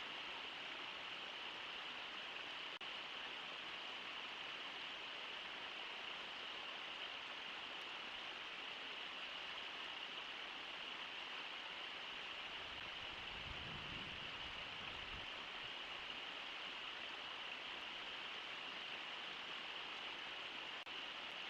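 Steady rushing of the Brooks Falls waterfall, with a brief low rumble about two-thirds of the way through.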